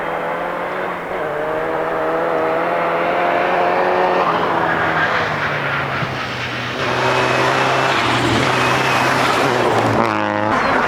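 Rally-prepared 2007 Subaru Impreza WRX STi's turbocharged flat-four engine at full throttle, stepping through gear changes about four and seven seconds in, with a quick rise and fall in pitch near the end.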